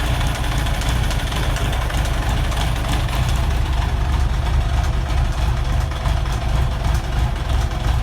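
1991 Kawasaki ZZR1100's inline-four engine idling steadily, with a mechanical noise that the owner cannot identify.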